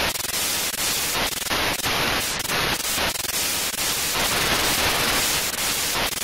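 Analogue TV/VHS static hiss: a dense, steady white noise that wavers slightly in level.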